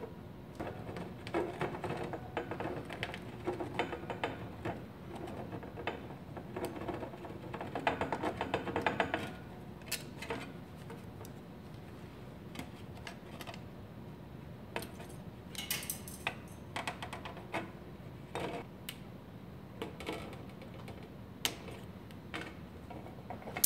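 Hand tin snips cutting thin aluminum fascia sheet: quick runs of sharp clicking snip strokes, densest and loudest in the first nine seconds or so, then scattered single clicks and light metal rattles.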